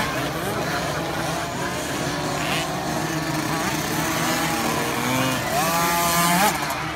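Several 50cc two-stroke motocross bikes running on the track, their engines revving up and down, with one climbing in pitch near the end and cutting off sharply.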